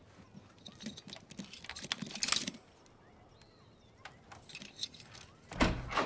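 Small metallic clicks and rattles of a five-pin door lock being picked, with the handle jiggling, in two bursts. A heavy low thud near the end.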